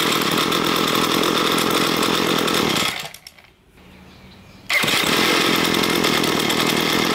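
Small two-stroke engine of a Ryobi ES30 string trimmer running, freshly set to 2.5 turns out on both carburetor mixture screws. About three seconds in it dies away, and about a second and a half later it comes back suddenly and runs on.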